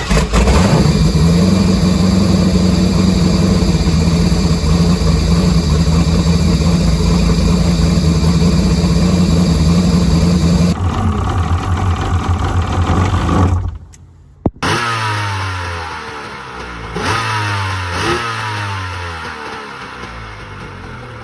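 A loud engine runs steadily for about thirteen seconds and stops abruptly. After a click, an engine revs up several times, rising in pitch each time, then fades.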